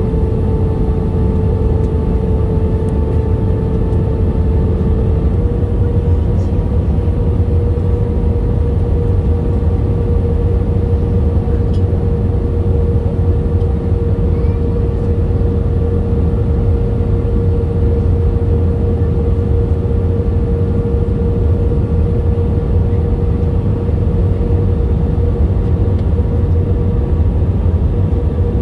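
Jet airliner cabin noise heard from a window seat over the wing: a loud, steady rumble of turbofan engines and rushing air, with a steady engine hum that steps up slightly in pitch about five seconds in.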